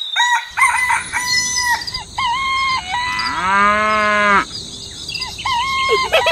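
Farmyard animal sound effects: a chicken clucking in short repeated calls, with one longer drawn-out animal call, rising then held, about three and a half seconds in.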